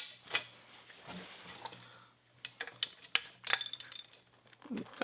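Small metal shift-linkage parts clinking and clicking against each other as they are handled and fitted: a couple of sharp clicks at the start, then a quick run of clicks about halfway through.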